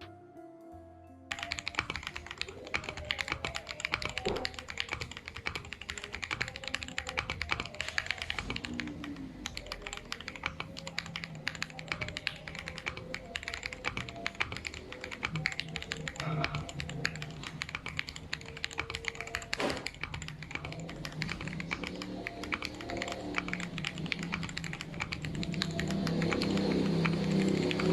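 Steady typing on a gasket-mounted NoirGear Z1 mechanical keyboard with Gateron Pro Milky Yellow linear switches on an FR4 plate and XDA-profile keycaps: a dense, continuous run of keystrokes that starts about a second in. Background music plays underneath and grows louder near the end.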